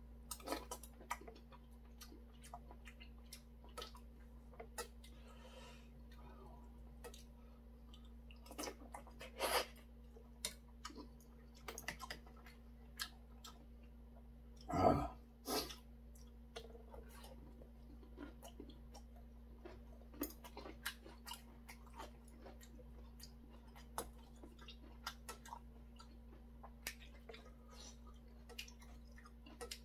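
A person eating boiled chicken and rice: chewing, with frequent short clinks of a metal spoon and chopsticks against a stainless steel bowl. A louder mouth sound comes about halfway through.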